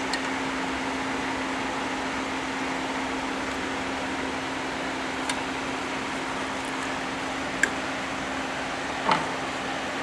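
Steady fan-like machine hum with a constant low tone. Over it, the plastic ink caps of a UV printer's capping station give a few small clicks as they are handled and fitted, with the loudest clack near the end.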